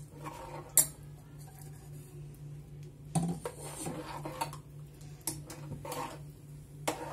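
Steel spoon stirring a thin curry in a metal pot, mixing in just-added water, and clinking against the pot's side now and then. The sharpest clink is about a second in, with another near three seconds.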